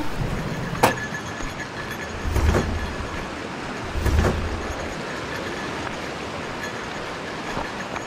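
Shallow mountain stream rushing over boulders, a steady noise, with a sharp click about a second in and two short low rumbling swells around two and a half and four seconds in.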